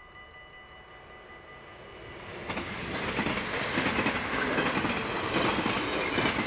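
A Dutch level-crossing bell rings faintly at first. Then a double-deck passenger train comes up and passes at speed, louder from about two seconds in, with a steady rumble of wheels on rails and rapid clatter over the rail joints.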